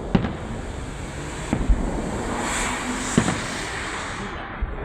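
Fireworks salute: a few sharp bangs of shells bursting over a steady rumble, with a hissing swell in the middle.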